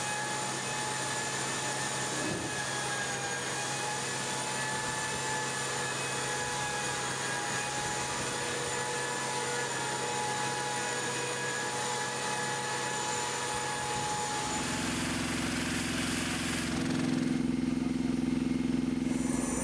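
Steady running noise of aircraft machinery on the flight line: a hiss with several steady whining tones. About 15 seconds in it changes abruptly to a lower hum, which grows a little louder near the end.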